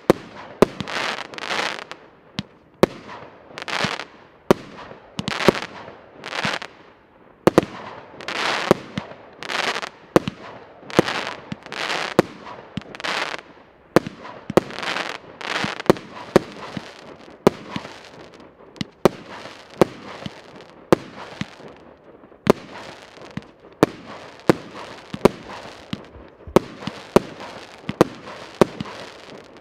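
A Piroff 'Ivanhoe' 200-shot, 1-inch fireworks battery firing in steady succession. Each sharp report, about one or two a second, is followed by a short hiss. In the second half the reports come closer together and the hiss is shorter.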